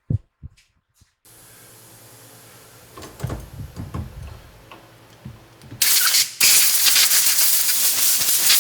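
A machine tool's motor runs with a steady hum and a few knocks while a brass gear is drilled and reamed. About six seconds in, a loud steady hiss takes over, with a brief break just after it starts.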